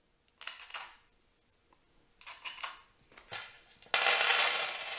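Small metal washers clinking: a few light clicks as they are picked up and set onto the battery cells' terminal studs, then a louder stretch of rustling and rattling about four seconds in as hands rummage through the loose washers and their plastic bag.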